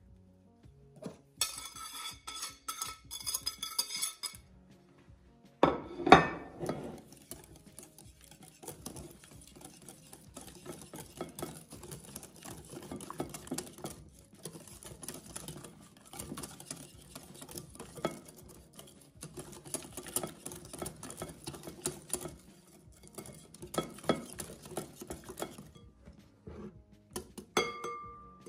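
A wire whisk beating a yoghurt and spice marinade in a ceramic bowl: a long run of quick scraping strokes with light clinks of metal on the bowl. Before it, crockery clinks and rings for a few seconds, and there is one loud knock about six seconds in.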